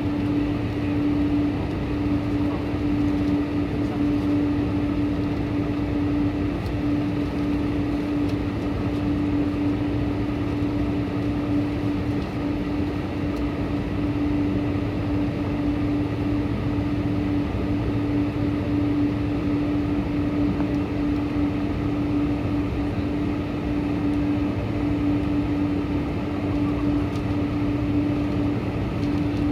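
Boeing 747-400's steady aircraft drone: Pratt & Whitney PW4056 engine and air noise, with a constant low hum over an even rush.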